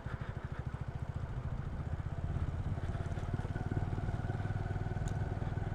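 Motorcycle engine running steadily at low revs, with a fast, even pulsing from the exhaust. It cuts off suddenly near the end.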